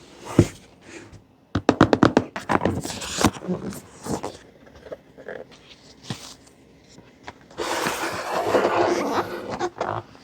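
Handling of a Keychron K2 HE keyboard and its packaging: a quick run of sharp clicks and taps, scattered single ticks, then about two seconds of rustling and scraping near the end.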